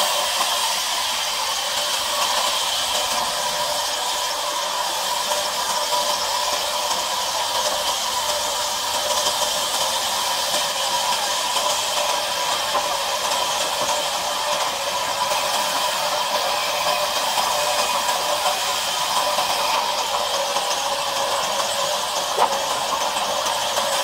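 Large sawmill band saw running its blade through a timber slab: a steady hiss with a constant whine over it. A single short knock near the end.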